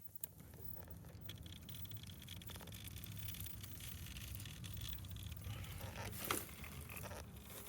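Electric RC crawler truck driving slowly: a faint high motor whine over a low hum, with light scraping and pattering of the tires on the ground.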